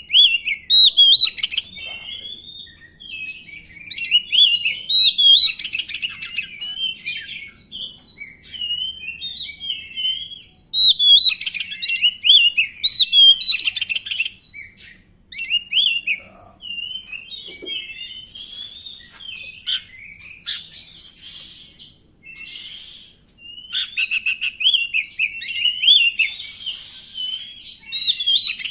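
Oriental magpie-robin (kacer, black-breasted form) singing a long, varied song of rapid whistled and warbled notes in phrases with brief gaps. A few harsh, scratchy notes come in about two-thirds of the way through and again near the end.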